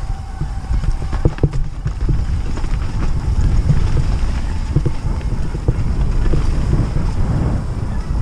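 Wind buffeting the microphone, with a low rumble and scattered knocks and rattles from a bike riding fast over a rough dirt trail.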